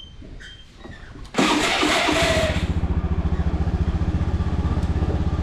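Small motorbike engine starting about a second and a half in, then idling steadily with an even, fast putter.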